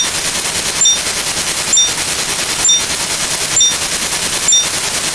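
Sound-effect rattle of rapid automatic gunfire, running steadily, with a short high blip about once a second, six in all.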